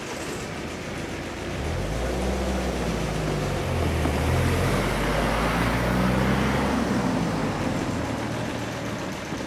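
Two cars driving over a railway level crossing close by. Engine and tyre noise swell from about a second and a half in, with the engine note shifting up and down, then ease off near the end.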